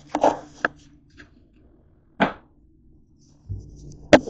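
Sharp knocks and clatters of things handled at a stainless steel kitchen sink. A quick cluster comes at the start and a single knock about two seconds in. A low rumble follows, then the loudest and sharpest knock near the end.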